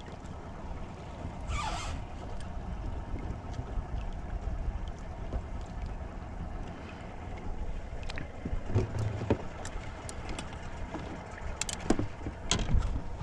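Steady low rumble of wind and water around a small fishing boat, with scattered small clicks and knocks as a crappie is handled and unhooked, and a brief rustle about two seconds in.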